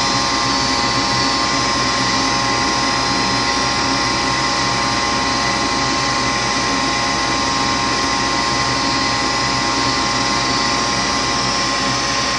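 Gas furnace blower fan running steadily with a constant motor hum during a failed ignition attempt: the burner never lights, which the owner puts down to no gas flowing.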